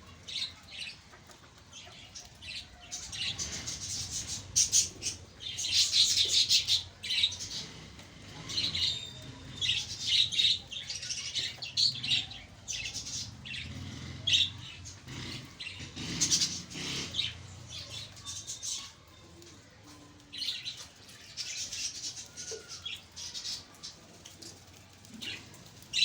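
A flock of caged budgerigars chattering in rapid, overlapping chirps, busiest in the middle stretch.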